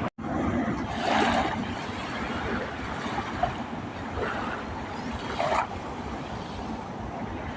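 Small sea waves washing against the shore, a steady wash with two louder surges, about a second in and again about five seconds in.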